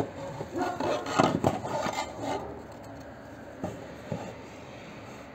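Handling noises at a workbench: rubbing and clattering as the drilled board is moved, then two light knocks. The drill press is not running.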